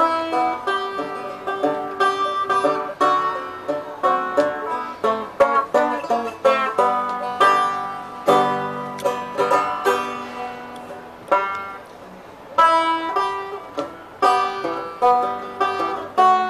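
Four-string banjo being strummed and picked, bright chords and single notes ringing out. About two thirds of the way through the notes are left to die away briefly before the playing picks up again.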